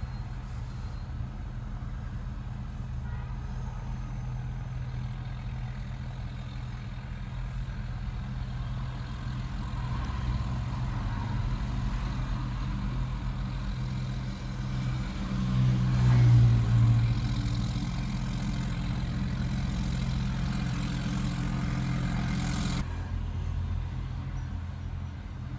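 A small diesel engine idling steadily as the DEF system leak test runs. It swells louder for a couple of seconds past the middle, and a higher hiss cuts off suddenly near the end.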